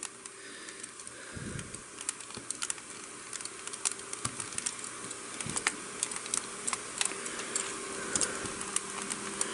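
Plastic parts of an Ocular Max Terraegis transforming-robot figure clicking and rubbing as hands press and pry sections apart: scattered light ticks at an uneven pace, with a couple of duller knocks.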